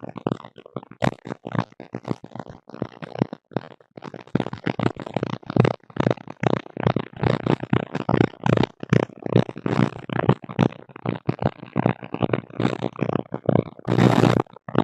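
Garbled, choppy interference noise from a tablet: a fast stream of short, chopped bursts, like scrambled voice crosstalk with no clear words. Near the end it thickens into a denser, hissier stretch.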